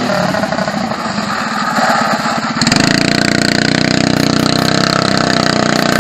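Small single-cylinder petrol go-kart engine running under way; about two and a half seconds in it gets louder and settles into a steady higher-revving note.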